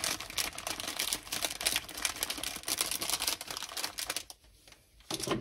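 Small clear plastic packets crinkling and crackling as they are handled, a dense run of quick clicks for about four seconds, then quieter with one short crackle near the end.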